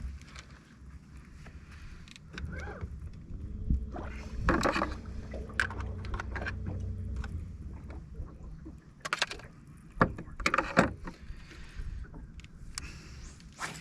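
Sounds aboard a fishing boat: a low motor hum that rises briefly as it starts and runs for about five seconds, with several sharp knocks and bumps, the loudest in the second half.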